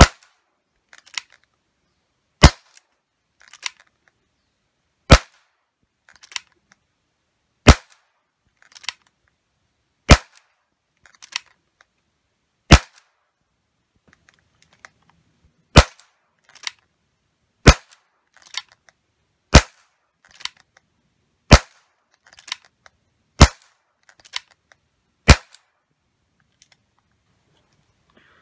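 ASG Dan Wesson CO2 airsoft revolver firing 6 mm copper-coated steel BBs through a chronograph, one sharp shot every two to two and a half seconds, about twelve in all. A fainter click falls between most shots.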